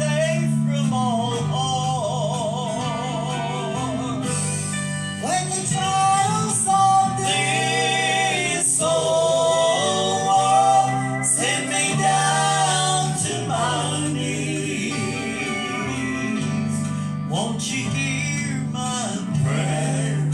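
Gospel song: a singer with vibrato over sustained instrumental chords.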